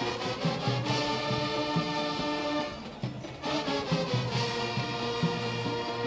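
Marching band playing live: the brass section holds loud sustained chords over steady drum hits, easing off briefly about three seconds in before the brass comes back in.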